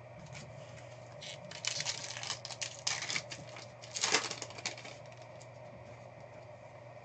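Foil trading-card pack torn open and crinkled by hand: a run of sharp crackling starts about a second in, is loudest around four seconds and stops about five seconds in, over a faint steady hum.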